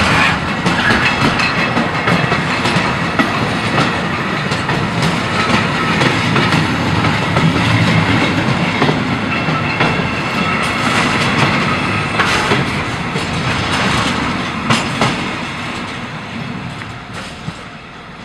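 Train behind a DSB class MZ diesel locomotive rolling past, wheels clattering over the rail joints with scattered sharp clicks. The sound fades away over the last few seconds as the train draws off.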